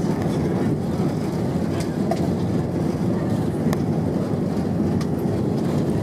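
Airbus A320 cabin noise during the landing rollout: a steady low rumble of the engines and the landing gear rolling on the runway, with a few faint clicks from the wheels going over runway joints.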